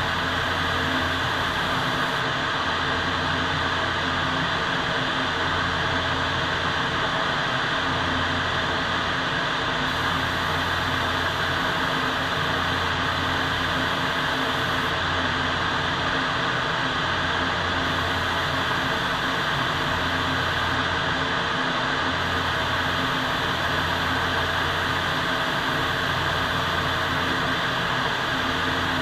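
Steady rushing air noise of a paint spray booth's ventilation, with the hiss of a compressed-air spray gun starting and stopping every few seconds.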